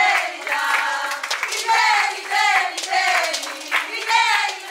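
A group of women singing in high voices over rhythmic hand clapping, the short sung phrases repeating about every half second.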